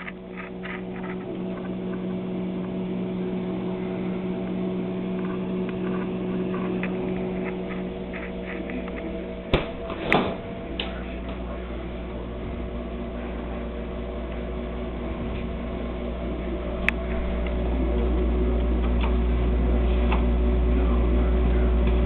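Steady electric hum of a refrigerator running with its door open, with a couple of sharp knocks about ten seconds in. A deeper low rumble joins and grows louder over the second half.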